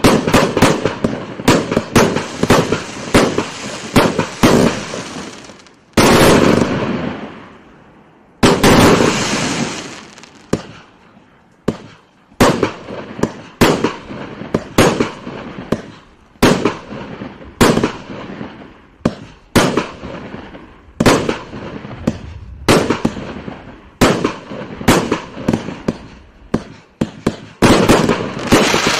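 King Fireworks 379-shot compact firework cake with 20, 25 and 30 mm tubes firing: a rapid string of shots, then two bigger bursts about six and eight seconds in that die away slowly. After that come single shots about one or two a second, which quicken into a fast volley near the end.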